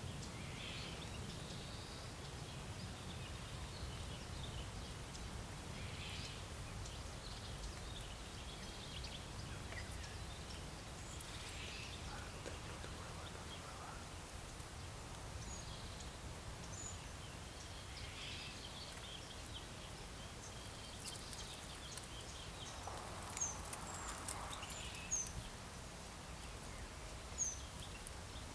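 Small birds chirping and twittering now and then over a steady low background rumble; a few short, sharp high chirps stand out in the second half.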